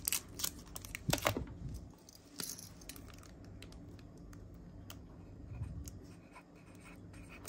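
A few small clicks and plastic crinkling in the first two seconds, as a Zippo lighter and its plastic sleeve are handled, then only a faint steady hum.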